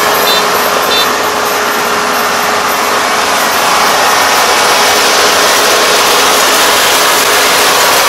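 Combine harvester running: a loud, steady mechanical noise with a constant hum.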